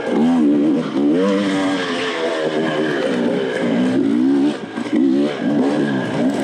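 Dirt bike engine revving up and down over and over as the rider blips and rolls the throttle on a trail, with a short lift off the throttle a bit past halfway.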